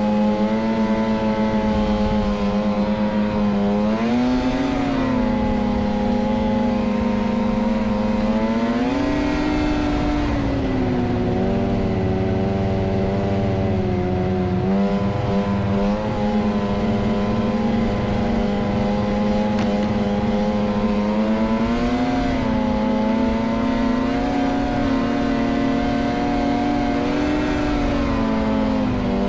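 Snowmobile engine running steadily at trail speed, heard from the rider's seat, its pitch rising with the throttle and easing back several times.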